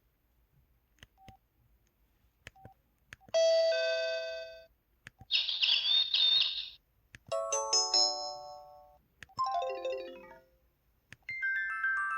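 Samsung SCH-X600 mobile phone playing its built-in message alert tones one after another: a chime, a shrill buzzing chirp, a rising run of notes, a falling run of notes, and another rising run starting near the end. A few short beeps and clicks come first, before the alerts start.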